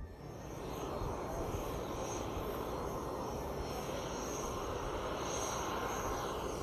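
Jet aircraft engine noise on an airfield: a steady rushing hum with a thin high whine.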